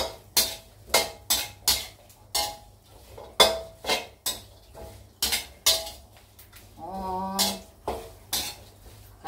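A metal spatula clanks and scrapes against a steel wok, stirring dry lemongrass, makrut lime leaves and chillies. The ingredients are being dry-roasted without liquid, in irregular strokes about one to two a second.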